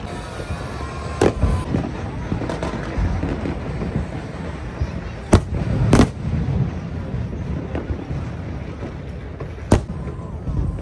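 Aerial fireworks bursting: sharp bangs about a second in, two more around five and six seconds in, and another near the end, over a steady background of noise.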